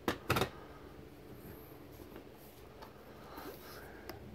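Handling sounds from a light-up novelty drinking mug being turned over in the hands and switched on: two brief knocks near the start, then a few faint clicks over quiet room tone.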